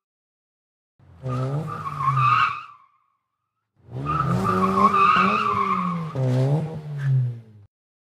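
Car engine revving with tires squealing, in two bursts, the first about a second in and the second from about four seconds in, each with the engine pitch sweeping up and down under a steady high squeal.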